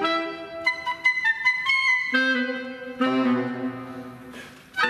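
Live woodwind ensemble of flute, clarinets and saxophone playing a melodic passage: a quick run of high notes about a second in, then held lower notes that fade before a new phrase begins near the end.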